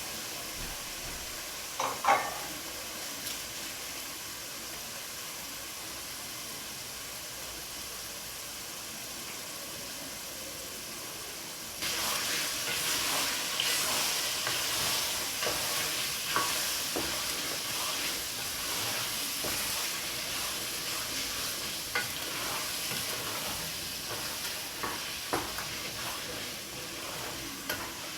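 Tomato and pepper sauce frying in oil in a pot, a steady sizzle with a sharp knock about two seconds in. About twelve seconds in the sizzle turns suddenly louder, with scattered clicks and scrapes of a spoon stirring the pot.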